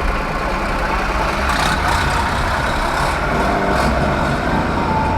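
Steady motor-vehicle engine and road noise, with a low rumble throughout.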